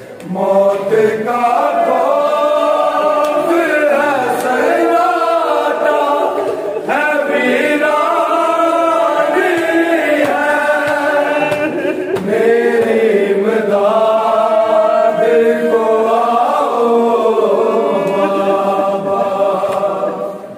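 A group of noha reciters chanting a noha, a Shia lament, in long sung phrases with only short breaks between them and no instruments.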